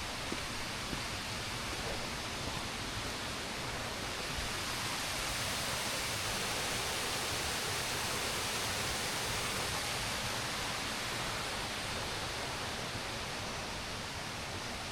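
Rushing water: a steady, even hiss of running water that holds level throughout.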